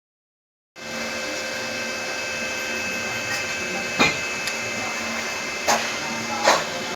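A machine or power tool running steadily with a fixed hum, starting abruptly just under a second in. Three sharp knocks sound over it, about four, five and a half and six and a half seconds in.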